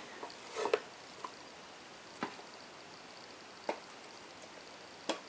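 Handling noise: four light clicks and knocks, the strongest about a second in, as a wooden specimen display box is handled and set down.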